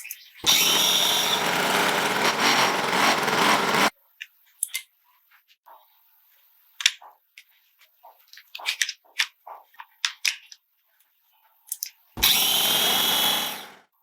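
A power tool, most like a drill, running in two bursts: the first for about three and a half seconds, stopping suddenly, the second for about a second and a half near the end, dying away. Scattered light clicks and knocks come in the gap between the bursts.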